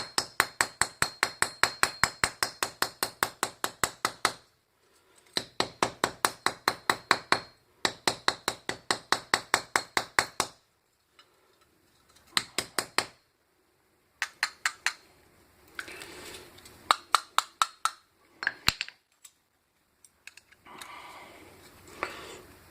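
A hollow sterling silver handle struck in quick, even runs of about seven blows a second, a few seconds at a time with short pauses, to crush the resin filling inside it. The blows turn fewer and weaker in the second half.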